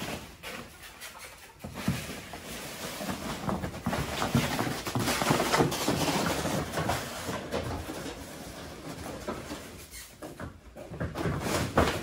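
Woven plastic feed sacks dragged across a concrete floor on a rope, rustling and scraping, mixed with a mule's hooves knocking on the concrete. The noise is loudest in the middle and dies down near the end.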